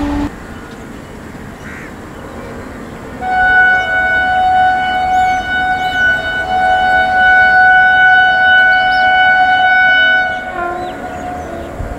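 Locomotive horn sounded in one long, steady blast of about seven seconds, starting about three seconds in, as an approaching train signals its coming. A few faint bird chirps sound over it.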